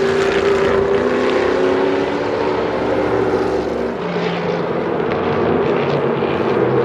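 Can-Am sports-racing car engines running hard. One engine note slides slowly down in pitch, then about four seconds in a lower engine note comes in and rises.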